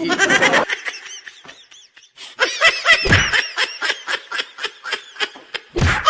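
Laughter: a quick run of short, high-pitched laughs that starts about two seconds in, after a quieter stretch.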